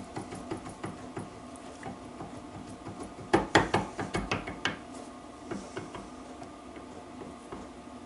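Metal engine parts and tools clinking and knocking as they are handled on a workbench during crankshaft assembly, with a quick run of sharper knocks about three seconds in, over a steady hum.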